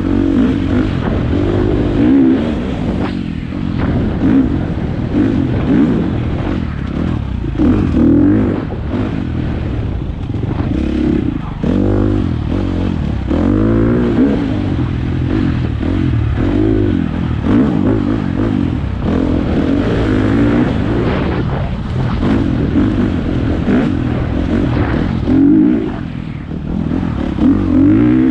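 Four-stroke single-cylinder dirt bike engine being ridden hard, its pitch rising and falling continually as the throttle is opened and shut and the gears change.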